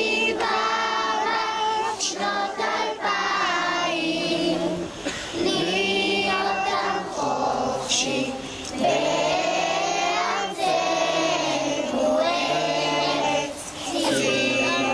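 A large group of young children singing a song together in unison, in phrases of held notes with short breaks between them.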